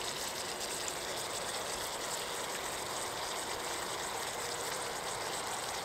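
Steak sizzling steadily in a frying pan on a gas stove.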